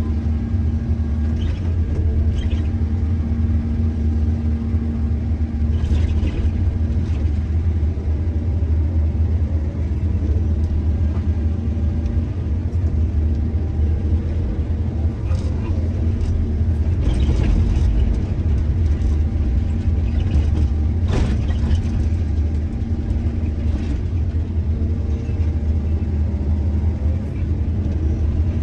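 Mining excavator's diesel engine running steadily with a deep drone, broken by a few knocks or scrapes about 6, 17 and 21 seconds in.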